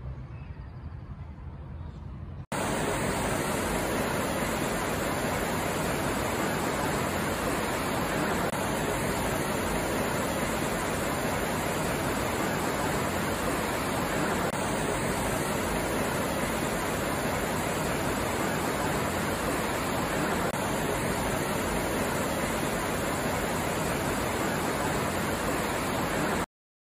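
A loud, steady rushing of water with no pitch, starting abruptly about two and a half seconds in after a faint background, and cutting off suddenly just before the end.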